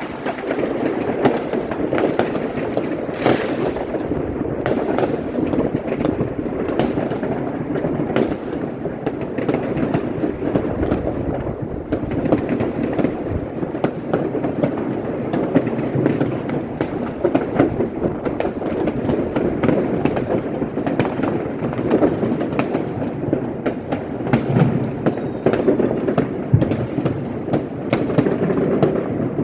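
Continuous New Year's fireworks: a dense, unbroken crackle of firecrackers and rockets with many sharp bangs and pops.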